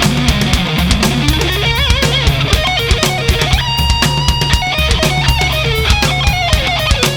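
Rock music: a lead electric guitar plays a melody of held notes with bends and vibrato over a steady drum beat.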